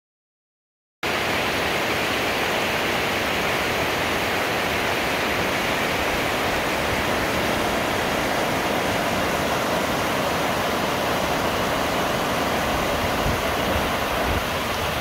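River water pouring over a weir: a steady rush of white water that starts suddenly about a second in.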